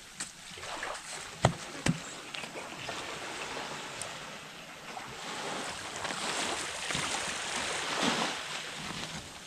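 Small waves washing on a sandy shore with some wind, the noise swelling and easing. Two sharp knocks come close together about a second and a half in.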